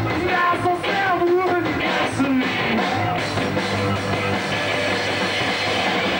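Rock band playing live: a singer's shouted vocals over drums and amplified instruments, with the singing dropping back about halfway through.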